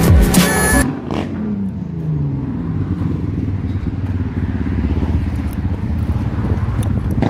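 Music cuts out about a second in. A vehicle engine's pitch then falls away, and a steady low engine rumble carries on.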